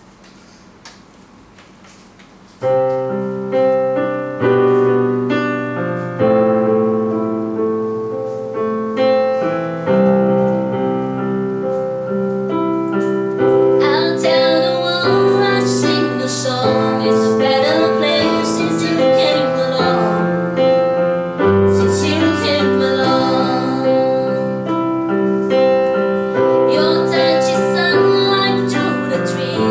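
Keyboard, played with a piano sound, beginning a gentle chordal intro about two and a half seconds in. The playing grows fuller and brighter about halfway through.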